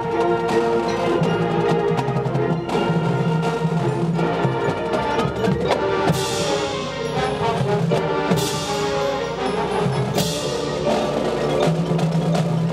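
High school marching band playing its field show: sustained wind chords over percussion, with three crashes in the second half, about two seconds apart.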